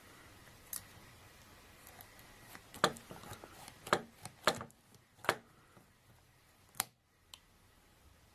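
Heavy-duty manual stainless steel cable tie tensioner being worked: about six sharp metallic clicks and snaps, irregularly spaced, as the tie is tightened and trimmed by the cutting lever.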